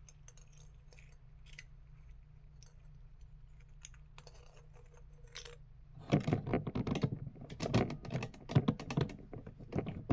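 Handling noise from the recording phone or camera being moved and adjusted: faint scattered clicks at first, then from about six seconds in a rapid run of loud tapping and clattering right at the microphone.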